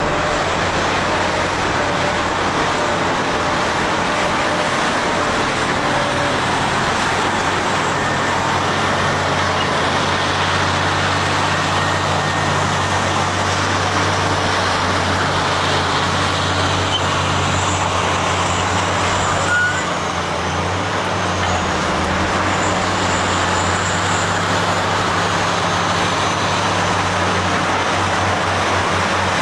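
Heavy diesel engines of Caterpillar 657 wheel tractor-scrapers running in a convoy: a loud, steady drone with deep engine tones.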